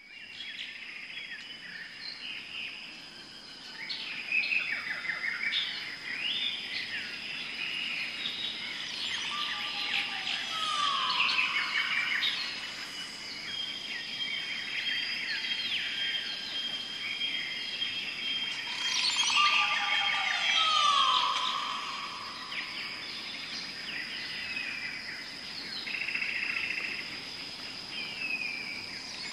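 A chorus of wild birds chirping and trilling over a steady high tone, with a louder falling call that comes back about every ten seconds.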